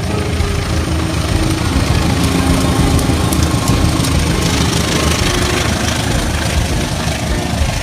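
Diesel locomotive engine running with a steady low rumble, a hiss growing louder about halfway through.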